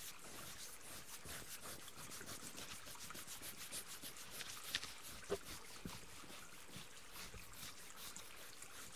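ASMR hair-scratching sounds: quick, repeated scratching and rubbing strokes close to the microphone, with a few sharper ticks in the middle and a faint trickle of stream water behind.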